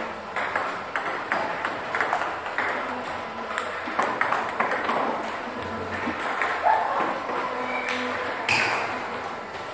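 Table tennis balls being struck with paddles and bouncing on the table, a rapid, irregular run of light clicks.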